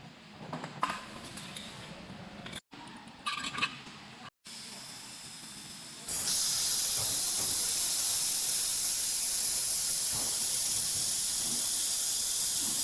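Handheld laser welding gun working, a loud, steady hiss that starts about six seconds in. Before it there is quieter noise with a few clicks and two brief cuts to silence.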